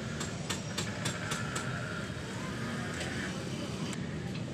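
A few light metallic clicks from hand tools working on the engine's timing belt area, over a steady low background rumble. A faint high tone holds for about two seconds in the middle.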